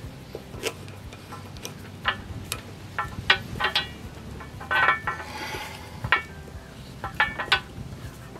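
Scattered light metallic clicks and clinks as a hose coupling is handled and threaded onto a brass hose-reel swivel fitting, with a brief scraping rustle about five seconds in.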